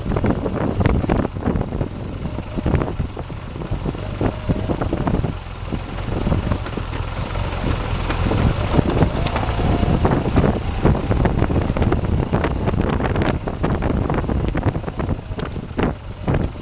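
BMW R 1200 GS boxer-twin motorcycle riding on a dirt track: the engine runs under wind buffeting on the microphone, with frequent knocks and rattles throughout.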